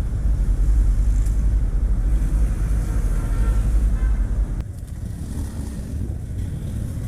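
Motorcycle on the move with wind rumbling on the microphone; the heavy low rumble eases suddenly about two-thirds of the way in.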